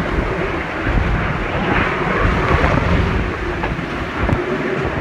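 Category 4 hurricane eyewall winds, over 140 miles an hour, with driving rain: a loud, steady rush of wind and rain, heavily buffeting the microphone.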